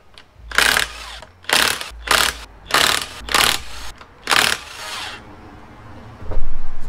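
Cordless impact wrench rattling in about six short bursts on the flywheel bolts of a Suzuki engine, followed near the end by a dull low thump and rumble.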